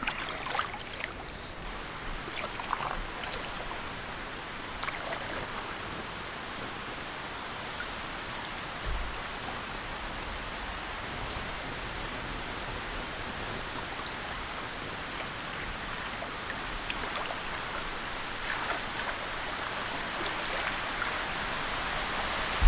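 Steady rushing of flowing river water, growing a little louder near the end.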